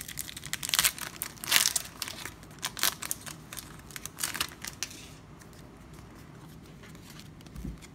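Foil wrapper of a Pokémon TCG booster pack crinkling and tearing as it is pulled open and the cards are slid out. The crinkling stops about five seconds in, and a soft bump follows near the end.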